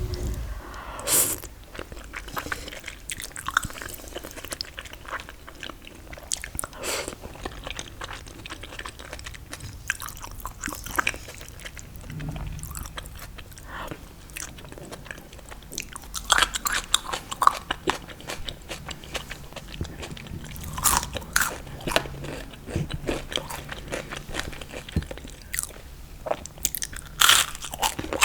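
A person biting into and chewing crunchy fried food: crisp crackling crunches in bursts every few seconds, with quieter chewing between them.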